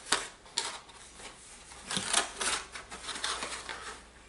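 Clicks, taps and rustles of a product and its packaging being handled and pushed into place, several sharp clicks scattered through.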